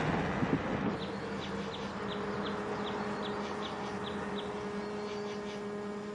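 A bird chirping: short, high, falling chirps about three a second over a steady low hum. Vehicle noise fades out in the first second.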